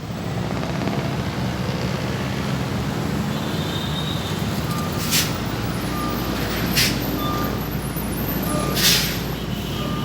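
Heavy road traffic: a vehicle engine running steadily, with three short sharp hisses in the second half and short high beeps repeating about once a second.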